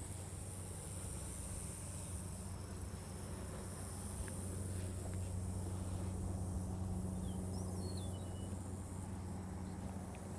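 Steady low hum of an engine idling, with a high insect trill in the field grass. A bird chirps briefly a few times about three-quarters of the way through.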